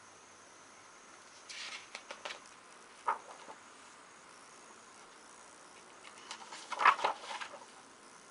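Pages of a hardback picture book being turned by hand: a couple of short paper rustles and a sharp tap in the first half, then a louder flip-and-rustle of a page a little before the end.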